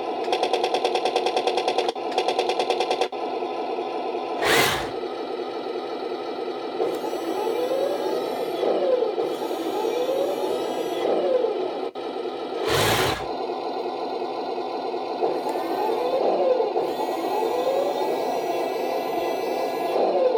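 M3 Grant/Lee 2.4 GHz RC toy tank running its built-in sound effects: a steady buzzing engine drone through a small speaker, with two short loud blasts about eight seconds apart. In the second half a whine repeatedly rises and falls.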